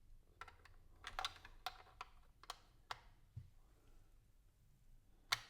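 Plastic LEGO bricks clicking and tapping against each other as a small roof sub-assembly is handled and fitted onto a build: a run of sharp, irregular clicks, a soft thud, and one louder click near the end.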